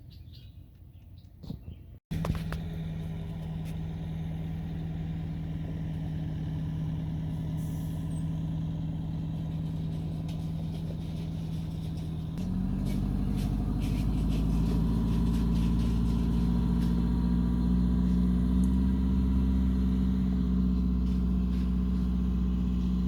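An engine running steadily with a low hum, starting abruptly about two seconds in and growing louder, with a deeper rumble, about halfway through.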